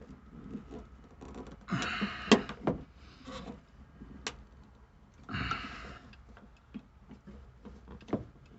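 A hand pop-rivet tool being worked on the seat-belt mounting: a few sharp metallic clicks and two short bursts of scraping and handling noise.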